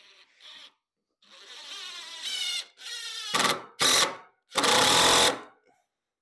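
A handheld power tool's motor spins up with a rising whine. It then runs in three short, loud bursts, the last the longest, before stopping.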